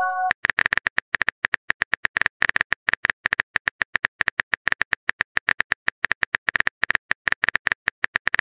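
Rapid, irregular clicking of a phone keyboard typing sound effect, about eight to ten clicks a second, starting about a third of a second in. It is the sound played while the next text message is being typed.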